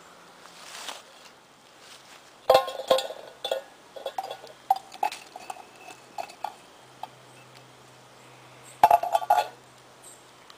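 Tin cans clinking and clanking as a stick lifts them out of a campfire and sets them on a rock. A cluster of sharp metallic knocks comes about two and a half seconds in, then a run of lighter taps, and another loud cluster near the end.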